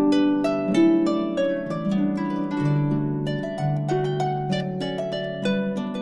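Background harp music: a steady run of plucked notes ringing over lower, longer-held bass notes.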